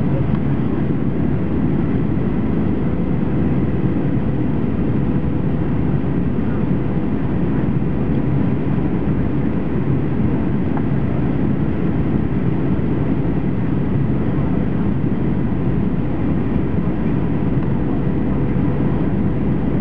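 Steady cabin roar of a Boeing 737-800 heard beside its CFM56 turbofan engine during the descent for landing: a deep, even rush of engine and airflow with a faint steady whine above it.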